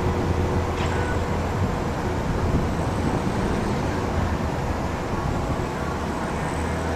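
Steady low rumble of an Airbus A320-232's IAE V2500 jet engines heard from a distance, with faint steady tones above it.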